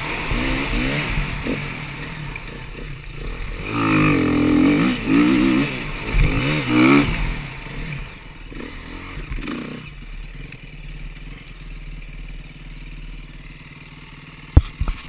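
Off-road dirt bike engine being ridden over a rough trail. It revs up and down in several loud bursts in the middle, then runs quieter at lower revs. There is one sharp knock near the end.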